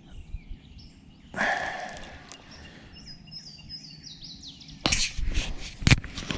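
A bird sings a quick run of short, high, falling notes midway through. Before it comes a brief whooshing rush about a second and a half in, and after it a cluster of loud knocks and rustles near the end.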